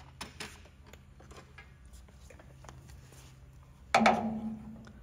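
Metal hand tools being handled, with light clicks and taps, then a loud metallic clank about four seconds in that rings briefly and fades.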